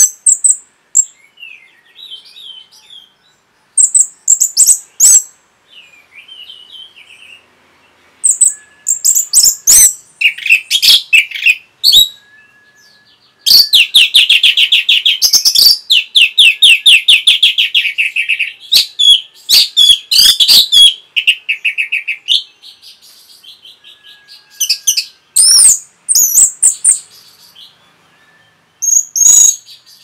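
Orange-headed thrush singing: loud phrases of high, sharp whistled notes with pauses between them, and a long fast run of rapidly repeated notes from about 13 to 22 seconds in.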